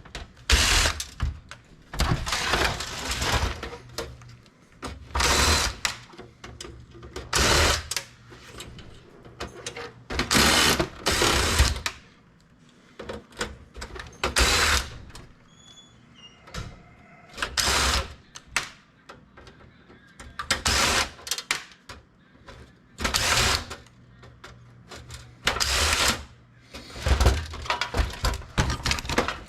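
Metal clanking and rattling as desktop computer cases are pulled apart by hand. There are irregular sharp clatters every second or few, with a couple of quieter pauses along the way.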